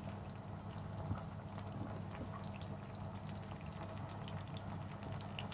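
Tomato slices frying in oil in a non-stick pan: a soft sizzle with scattered small pops and crackles over a steady low hum, and a light knock about a second in.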